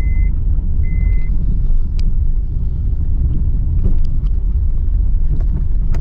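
Vehicle cabin noise while driving slowly over a rough, bumpy dirt road: a steady low rumble of the engine and tyres, with scattered knocks and rattles from the bumps. Two short high beeps sound in the first second and a half.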